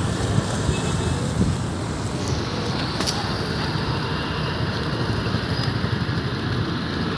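Steady low rumbling noise with a few faint, short high tones.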